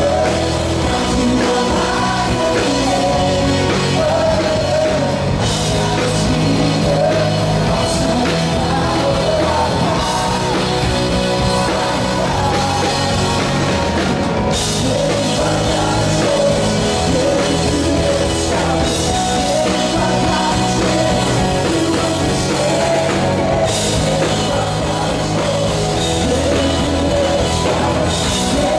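Rock music with drums and a singing voice, played loud and steady.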